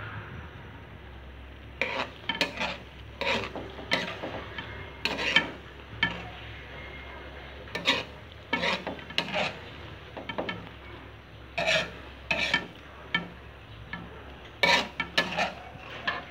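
A spoon scraping and knocking against a metal wok while stirring vegetables in coconut sauce. It comes in about five bursts of quick strokes a few seconds apart, over a low steady hum.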